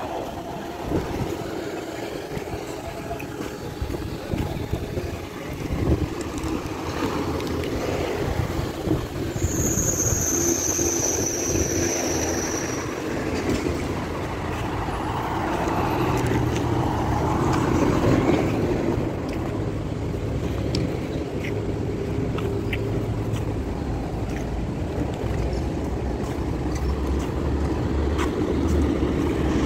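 Street traffic: cars driving past on a multi-lane road, their engines humming steadily. A high thin tone, falling slightly, sounds for about three seconds around ten seconds in.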